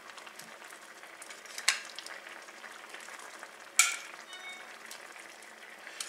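Sauce simmering in a stainless steel sauté pan with a quiet, steady sizzle as browned chicken pieces are put back in with metal tongs. Two sharp clicks from the tongs, one a little under two seconds in and a louder one near four seconds with a brief ring.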